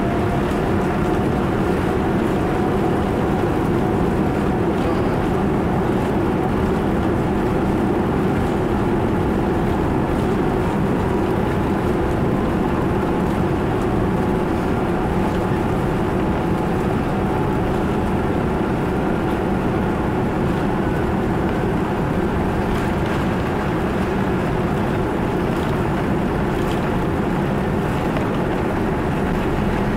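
Boeing 787-9 cabin noise during the takeoff roll: the engines run at high thrust with steady rushing air and rumble, and faint steady whine tones sit above it.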